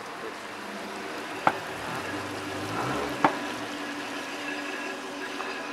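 City street background noise: a steady hiss and hum of traffic, with two sharp clicks about a second and a half and about three seconds in.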